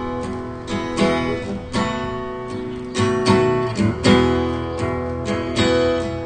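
Acoustic guitar strumming chords, each stroke ringing and fading: an instrumental passage with no singing.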